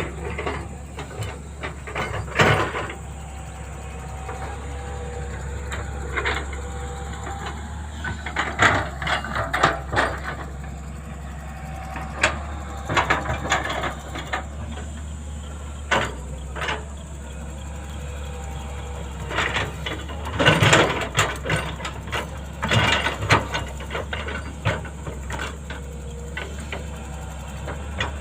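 Backhoe's diesel engine running steadily, with irregular clanks and knocks from the machine's bucket and arm working, in clusters partway through.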